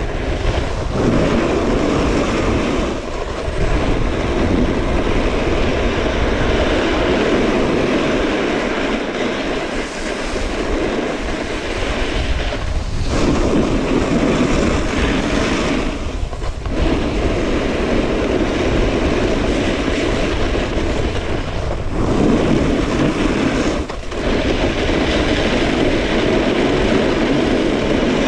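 A snowboard sliding over hard-packed groomed snow at speed: a loud, steady scraping rush mixed with wind on the camera microphone. It eases off briefly a few times.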